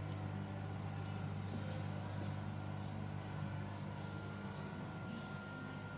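Electric motor of a 1960 Robinson WH/E hollow-chisel morticer running steadily with a low hum.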